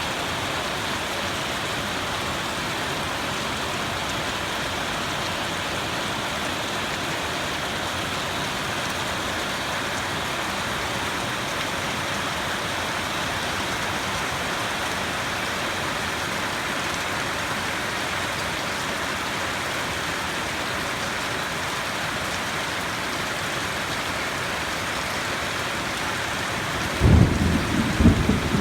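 Steady rain falling as a thunderstorm passes. About a second and a half before the end, a loud low rumble of thunder breaks in.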